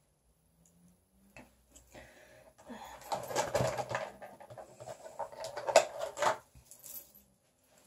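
Small items being handled and moved about on a bathroom counter: a stretch of rustling with many clicks and light clatters, busiest from about three seconds in until about six and a half seconds.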